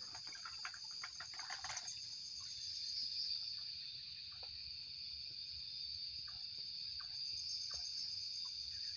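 Night insect chorus, mainly crickets, with a steady high-pitched trill throughout. In the first two seconds there is a brief spell of clattering or rustling, and after that only faint scattered ticks.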